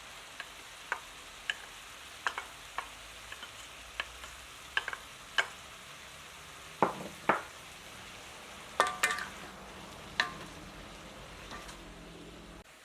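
Food frying in a hot pan with a steady sizzle, while a utensil stirs and clinks against the pan every second or so, with a few louder knocks in the second half. The sizzle cuts off suddenly just before the end.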